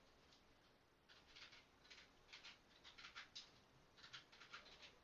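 Near silence, with faint soft clicks and rustles in a few short groups.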